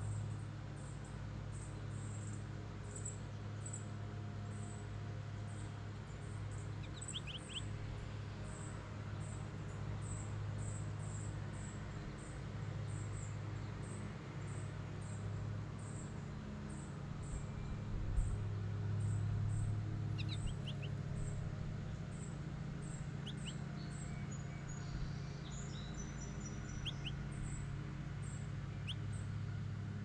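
Outdoor ambience at a bird feeder. An insect chirps very high and evenly, about twice a second, over a steady low hum, and a few short bird chirps come in twos and threes now and then.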